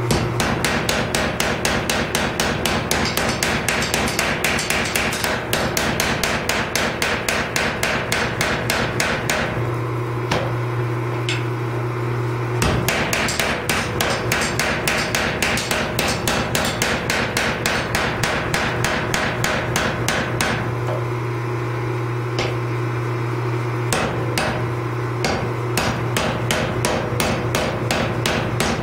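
Mechanical power hammer pounding a hot, layered Damascus steel billet with rapid, even blows, several a second, forging the welded bars down. A steady low hum comes in under the blows twice.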